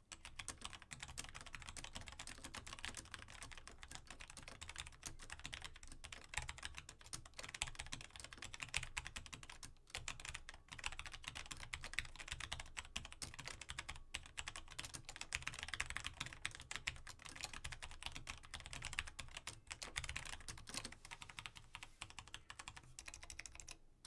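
Typing on a Logitech G Pro mechanical keyboard with Romer-G tactile, non-clicky switches: a fast, steady stream of key clacks with a couple of brief pauses.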